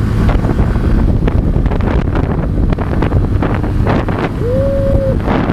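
Heavy wind buffeting on the microphone of a moving motorcycle. A short held tone sounds once near the end.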